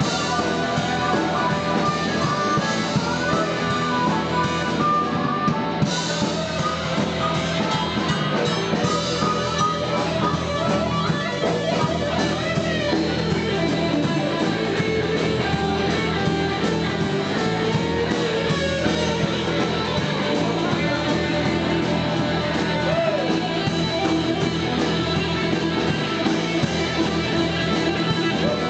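Blues-rock band playing an instrumental boogie passage: guitar over a steady drum kit.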